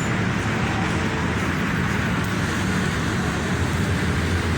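Toyota V8 engine idling steadily just after an oil and filter change.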